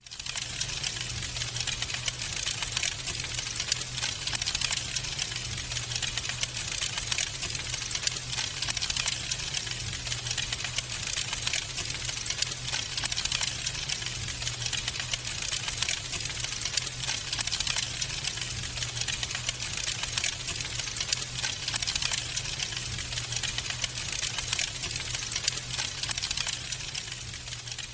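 Wood fire crackling in a fireplace: dense, rapid crackles with louder pops now and then, over a steady low hum.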